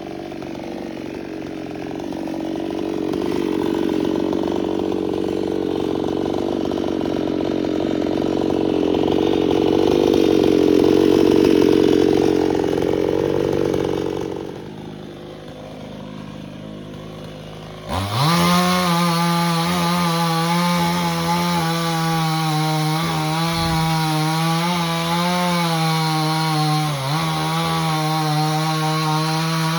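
Chainsaw running and cutting into jackfruit wood. It builds to full revs, eases off at about 14 seconds, then about 18 seconds in a louder, clearer high-revving chainsaw starts abruptly and holds steady, dipping in pitch briefly a couple of times as it loads up in the cut.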